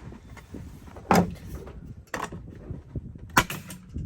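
A staple gun firing staples into pallet wood: several sharp shots about a second apart, the first the loudest.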